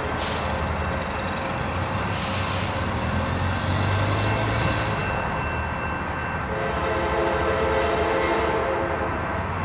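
Amtrak Surfliner passenger train approaching, its diesel engine running with a steady low hum; about two-thirds of the way in, a train horn sounds one long chord for about two and a half seconds.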